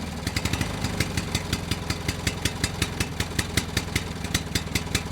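Pickup truck engine idling just after starting, with an even, rapid ticking pulse of about six a second.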